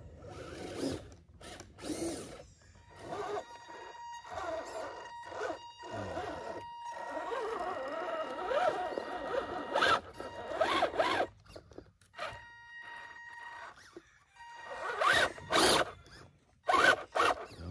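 Electric motor and gear drivetrain of an RC scale crawler whining at low throttle as it crawls over a rock, with short bursts of tyres scrabbling on dirt and stone. The whine starts about three seconds in, drops out briefly, and stops a few seconds before the end, where louder scrabbling bursts take over.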